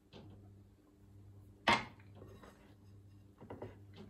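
Bread dough being mixed in a glass bowl with a silicone spatula: one sharp clink of glass a little under halfway through, and a few lighter taps near the end.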